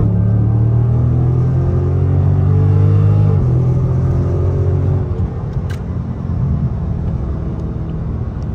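The 6.4-litre 392 HEMI V8 of a 2023 Dodge Charger Scat Pack, fitted with Dynomax Race Bullet mufflers, heard from inside the cabin under hard acceleration. The exhaust note rises with the revs and drops with an upshift about three and a half seconds in. About five seconds in the driver lifts off the throttle and it settles to a quieter drone while the car coasts.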